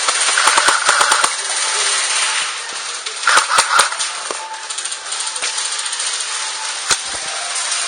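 Airsoft electric rifle firing two short bursts of rapid shots, the first about a second long and the second shorter about three seconds in, then a single sharp crack near the end.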